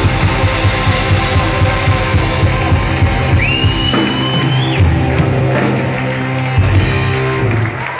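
Live rock band with electric guitars, keyboards and drums playing loud, holding a final chord under drum hits. The music cuts off just before the end, and a shrill rising whistle cuts through about three seconds in.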